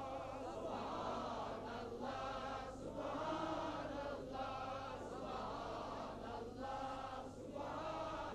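A group of voices chanting a devotional chant in unison, in short repeated phrases with brief breaks about once a second, at a low level.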